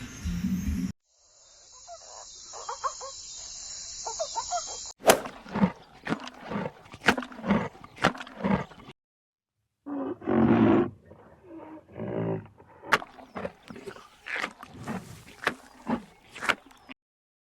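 Wild animal calls from several short clips played back to back: runs of short, rough, repeated calls at about two a second, with a sudden silence between clips.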